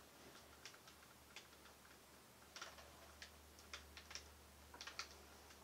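Near silence broken by faint, irregular light clicks and taps as a painting canvas is handled with a plastic-gloved hand.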